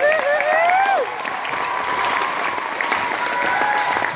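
Audience applauding, with a high wavering "woohoo" cheer through about the first second.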